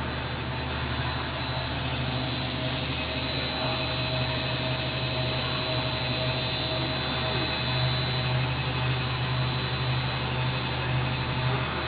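Twin-screw food extruder for puffed corn snacks running steadily: a constant mechanical drone with a high whine over a low hum.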